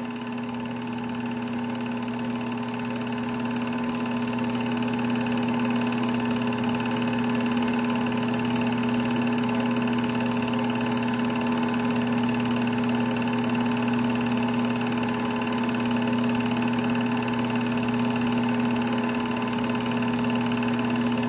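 Sears Tower movie projector running, its motor, fan and film transport making a steady whir with a constant hum.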